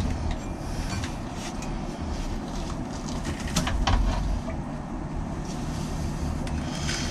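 Steady low rumble with a few sharp metallic clicks and clinks, at the start and again about one and a half, three and a half and four seconds in, as the Mercruiser 350 MPI's recirculation pump and its pulley are handled and worked loose in the engine bay.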